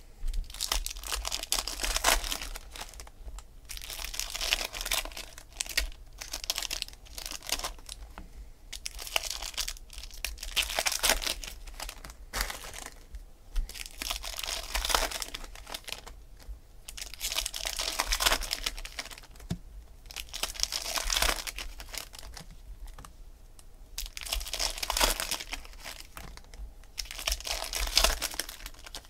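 Baseball card pack wrappers being torn open and crinkled by hand, in bursts every few seconds, one pack after another.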